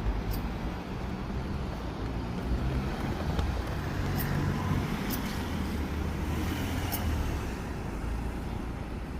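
Steady low rumble of road vehicle traffic or a running vehicle, with a few faint, sharp high clicks scattered through it.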